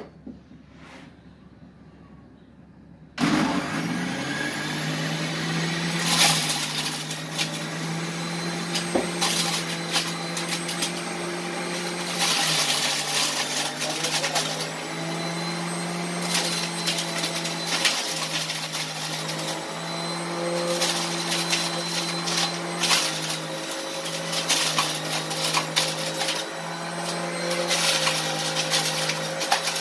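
Electric centrifugal juicer switching on about three seconds in and running steadily on grapes, its motor pitch dropping for a moment now and then as the grapes are pressed down the feed chute and juiced.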